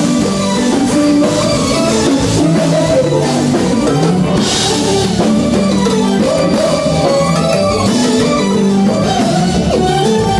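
Live kompa band playing, with drum kit and electric guitar over steady bass notes.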